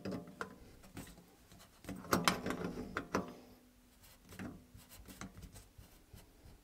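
Metal tool clinking against a sink strainer's lock nut as it is tightened from under the sink: a scattered series of sharp clicks, some followed by a short metallic ring.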